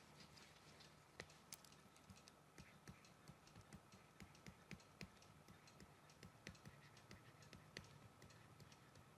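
Faint typing on a computer keyboard: soft, irregular key clicks, a few a second, over a faint steady hum.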